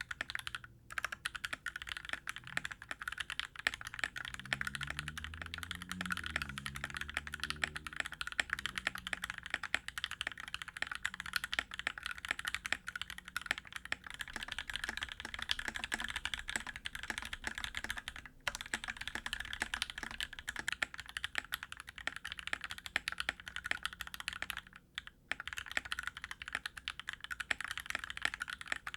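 Typing sound test on a Gamakay CK68 mechanical keyboard with PBT keycaps: a fast, continuous, clacky run of keystrokes with a few brief pauses. The case has just been tape-modded and the stabilizers lubed with dielectric grease.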